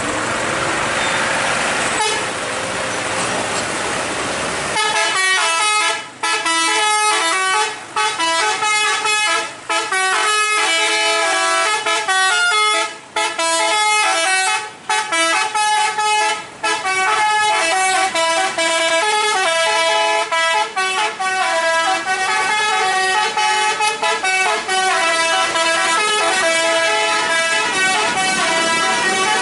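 Road traffic and truck engine noise, then about five seconds in a musical truck horn starts playing a tune: a long run of quick stepped notes, with brief gaps between phrases.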